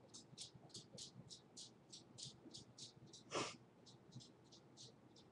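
Near silence with a faint, rapid, high-pitched ticking hiss, and one short, sharp breath a little past halfway through.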